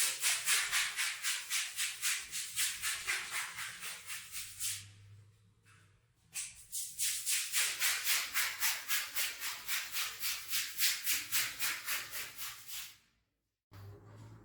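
Rhythmic, hissing brush strokes scrubbing a rug, about four a second, in two runs separated by a short pause about five seconds in.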